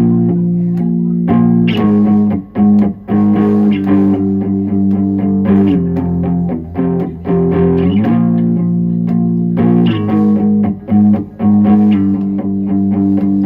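Electric guitar and bass guitar playing a punk song's instrumental intro with no drums: held chords, broken by short stops every few seconds.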